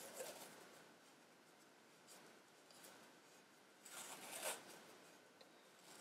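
Masking tape peeling off its roll in faint, soft rasps as it is wound around a fly rod blank to build up a bed for the cork grip. The loudest rasp comes about four seconds in.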